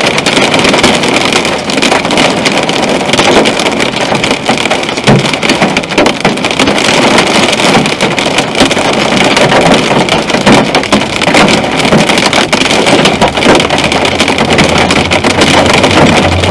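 Heavy storm precipitation drumming on a car's roof and windshield: a loud, dense, unbroken patter of sharp hits.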